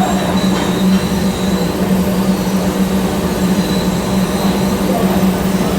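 TIG welding arc and welding machine running steadily: a constant low buzz over an even hiss.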